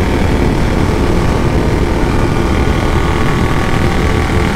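Yamaha R15 V4's 155 cc single-cylinder engine running steadily at highway speed, around 110 km/h. It is heard from the rider's seat under heavy wind rumble on the microphone.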